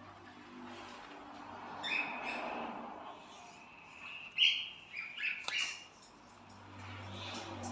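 Pet cockatiels chirping, several short calls with the loudest about four and a half seconds in, and a single sharp click a second later.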